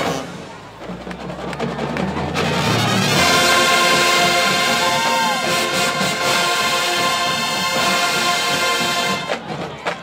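High school marching band brass playing: a low note swells for the first two seconds, then the full brass enters with a loud held chord that sustains until shortly before the end.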